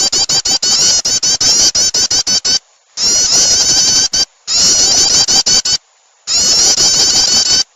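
Prenjak (prinia) call used as a bird lure: fast, repeated high chattering notes in four bursts of about one and a half to two and a half seconds, with short silent gaps between them. The recording is loud and harsh, as if clipped.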